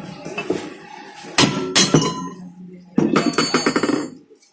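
Metal clanks from the cut-open steel shell and parts of a refrigerator compressor being handled: two sharp strikes about a second and a half in, then a third about three seconds in that rings on for about a second.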